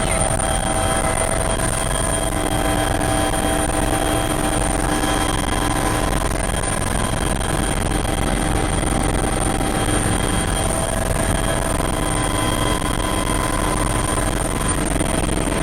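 Rescue helicopter running steadily: a constant rush of rotor and engine noise with a steady high whine on top.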